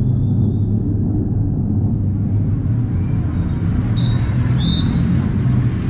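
Steady low rumble of a motor vehicle running, with a few short high chirps about four seconds in.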